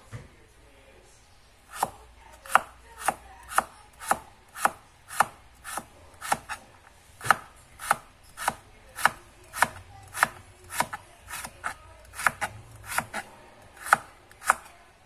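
Kitchen knife slicing carrots on a plastic cutting board: a steady run of sharp knife strokes, about two a second, beginning about two seconds in.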